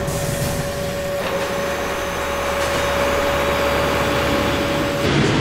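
Steady engine whine held on one high note, with a short break about a second in, over rushing engine noise and a low hum: machinery ambience on an aircraft carrier's flight deck. Near the end it gives way to louder, rougher rushing noise.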